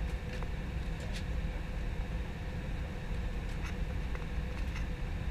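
Steady cabin noise inside an Airbus A320 on approach: a low rumble of airflow and engines with a thin steady hum, and a few faint ticks.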